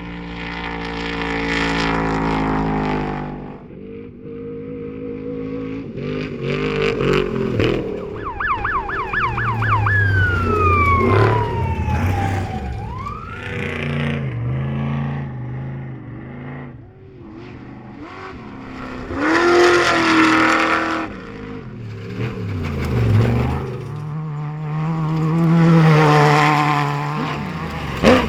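Off-road race vehicles' engines running hard and passing one after another, the pitch rising and falling with each pass. Partway through, a siren yelps rapidly and then wails down and back up, the kind desert racers use to warn a slower vehicle of a pass.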